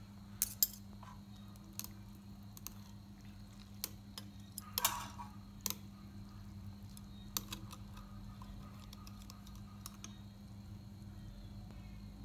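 Metal chopsticks clicking against a ceramic bowl while stirring and lifting instant noodles in broth: scattered light clicks, with a short slosh of broth about five seconds in. A steady low hum runs underneath.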